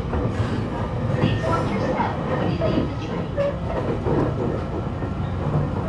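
Interior running sound of a JR E721 series 1000-subseries electric multiple unit under way, heard from inside the motor car: a steady low hum and rumble from the motors and from the wheels on the rails.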